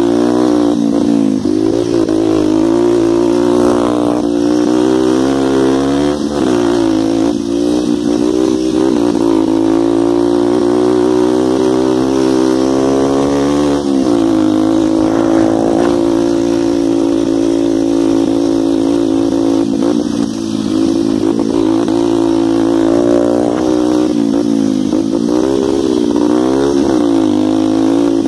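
125 cc dirt bike engine running hard as the bike is ridden across a field track. The engine note holds steady for long stretches and dips and climbs again several times, with a sharp dip about halfway and several quick rises and falls near the end.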